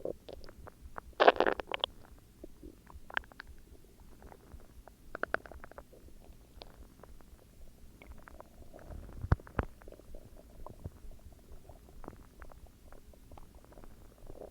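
A person's stomach growling: irregular gurgles and squelches. The loudest burst comes about a second in, another follows around five seconds, and a low thud comes near the middle.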